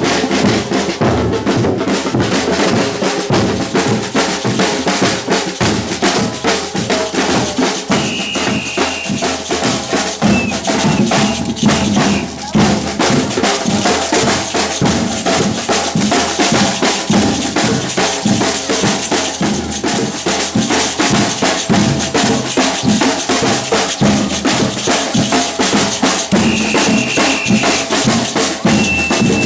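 Batucada samba percussion ensemble playing a fast, dense groove of bass drums, snares and other hand percussion, with a brief break about twelve seconds in. A shrill whistle sounds twice over the drums, about a second each time.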